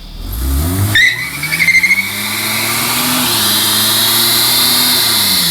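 Holden VL Commodore engine revved hard in a stationary burnout: the revs climb in the first second, then hold high and steady while the spinning rear tyres squeal and hiss, dropping away at the end.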